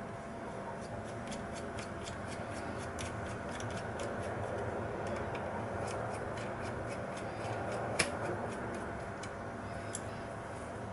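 Scattered small clicks and ticks from hard parts being handled, with one sharper click about eight seconds in, over a steady background hiss.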